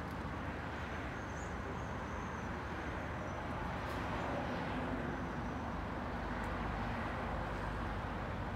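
Steady outdoor street noise of road traffic, with a faint high-pitched whine for a few seconds starting about a second in.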